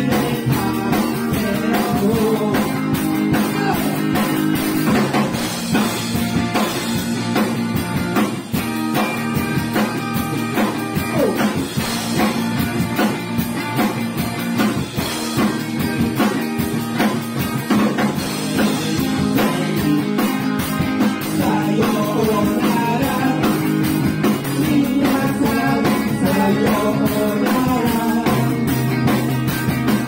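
Rock band playing live: electric guitars and a TAMA drum kit, with a man singing at the start and again near the end, and an instrumental stretch in between.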